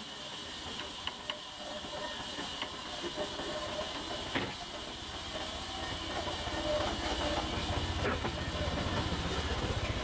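Band sawmill machinery running with a steady hiss, and a low rumble building through the second half. A few sharp knocks come early on and again near the middle as a steel bar levers the log on the carriage.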